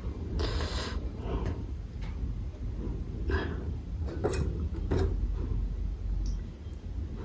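Food and dishes being handled at the table: a rustling scrape near the start, then a few light knocks of a plate or utensil about three, four and five seconds in, over a faint steady low rumble.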